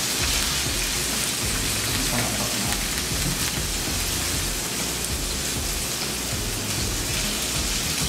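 Fish fillets frying in hot olive oil in a pan on a gas stove: a steady sizzling hiss.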